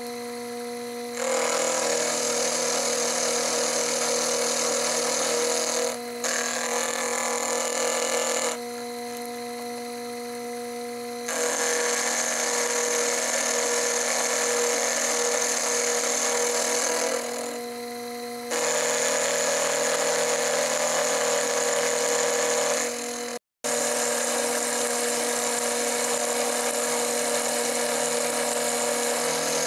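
Sherline mini mill's spindle motor running steadily while an end mill cuts a steel block, the cutting noise coming and going as each pass engages the metal, quieter between passes. The sound drops out for an instant about two-thirds of the way through.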